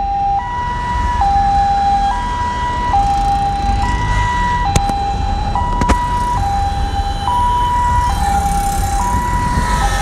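Two-tone hi-lo siren of an emergency vehicle, switching between a lower and a higher note about every second without a break. Low road and engine rumble lies underneath, and two sharp clicks come a little past halfway.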